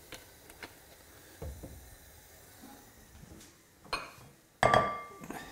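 Light kitchen knocks and clicks, then about four and a half seconds in a loud clatter of a dish on a hard worktop that rings briefly and fades.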